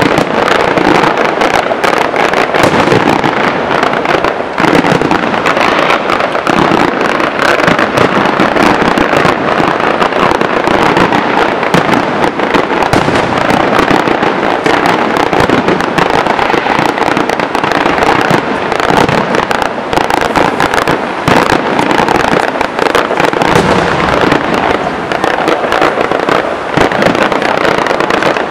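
Fireworks show firing without a break: a dense, continuous crackle of rapid pops and bangs.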